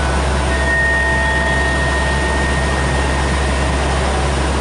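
Stationary 521 series electric train's onboard equipment running: a steady low hum with a noisy whir and thin whining tones, one high whine sounding from about half a second in until about three and a half seconds.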